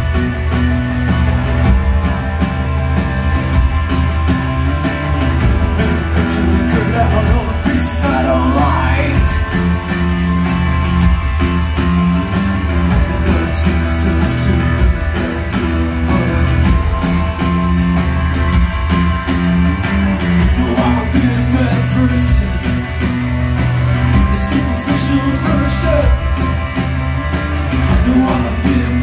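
Live post-punk band playing through a concert PA, heard from the crowd: a steady driving drum beat, held bass notes, electric guitars and keyboard, with a singer's voice coming in at several points.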